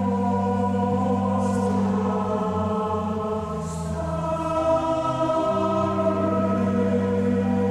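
A choir singing slow, held chords inside a large stone cathedral, the notes changing every few seconds.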